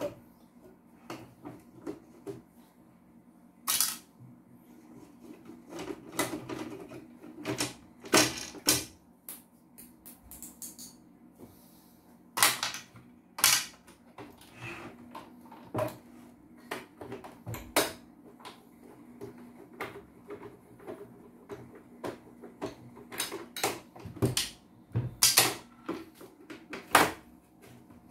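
Irregular plastic and metal clicks and knocks as a CNY portable embroidery machine's plastic housing is handled and worked on with a screwdriver, with several louder knocks spread through.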